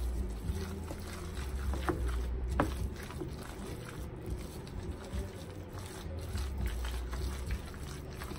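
Wooden spoon stirring a thick turkey salad dressed with Miracle Whip in a large mixing bowl: soft wet squishing and scraping, with a couple of light knocks of the spoon against the bowl, over a low rumble.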